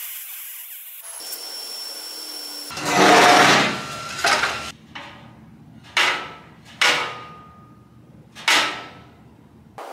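Hammer striking steel: a loud scraping clatter about three seconds in, then four sharp metal hits that each ring briefly, spaced about a second apart.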